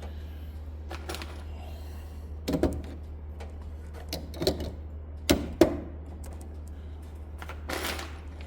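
Scattered clicks and knocks of small hand tools and plastic parts being picked up and set down, over a steady low hum.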